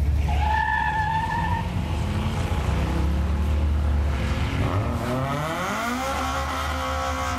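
SUV launching off a drag strip start line: a short tire squeal just after it starts, over a deep engine and exhaust rumble. From about four and a half seconds the engine note climbs in pitch as it pulls down the track, then levels off near the end.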